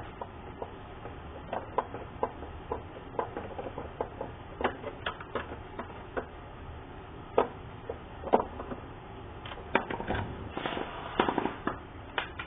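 Irregular clicks and taps of a screwdriver and hands on the plastic base of a Bissell PowerForce Helix upright vacuum as the brush plate screws are worked out, growing busier near the end.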